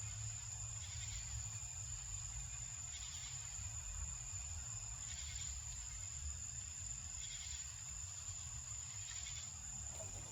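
Insects calling: a steady high buzz with a pulsing call repeating about every two seconds, over a steady low rumble.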